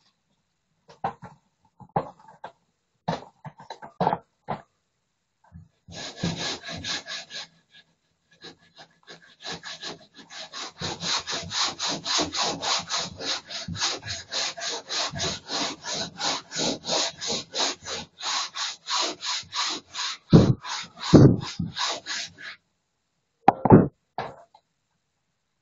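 Rapid, even back-and-forth scraping strokes of a hand tool over a plastered wall, about three a second, after a few scattered strokes at first. The strokes stop short of the end, and there are a few louder knocks around the time they stop.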